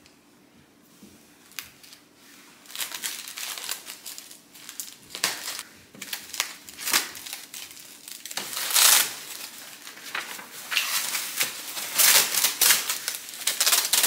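Plastic wrap and foam packing sheets crinkling and rustling as they are pulled off a tabletop in its cardboard box. Quiet for the first couple of seconds, then irregular crinkling that grows louder, with the loudest handfuls in the middle and near the end.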